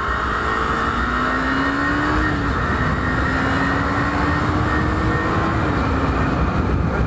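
KTM Duke 250 single-cylinder engine pulling hard under acceleration. Its pitch climbs, drops at a gear change about two and a half seconds in, then climbs again to a second upshift near the end, under a steady rushing noise.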